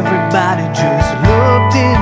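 Background music: a guitar melody with gliding, sliding notes over a steady bass line.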